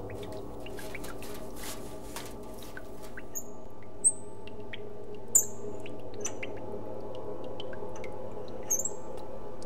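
A steady low hum with scattered short, high chirps and faint clicks; the loudest chirps come about four and five and a half seconds in.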